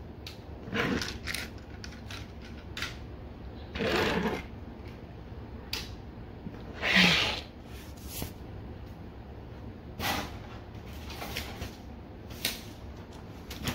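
Transformers toy cars being handled on a wooden board: a string of short knocks and scrapes as they are picked up, set down and moved, two of them longer, near the middle.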